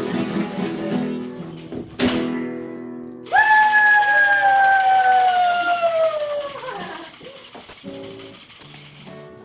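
A live acoustic song ends on a sharp final hit. A loud jangling percussion sound follows, with a ringing tone that slowly falls in pitch and fades away over about five seconds.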